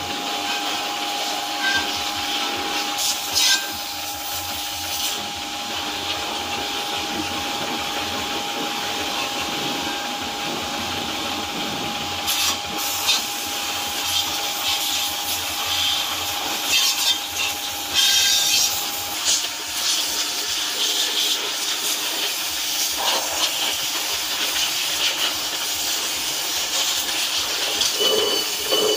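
Pressure washer jet hitting steel brake drums, rotors and steering knuckles: a steady spraying hiss with water spattering off the metal. A faint steady hum under it stops about two-thirds of the way through.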